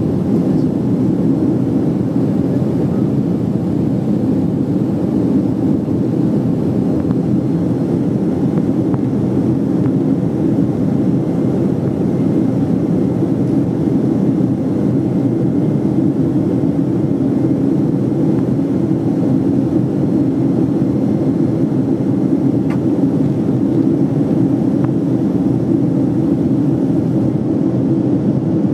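Steady engine and airflow noise inside the cabin of a Boeing 767-300ER during its climb after takeoff: an even, low-pitched rumble that does not change.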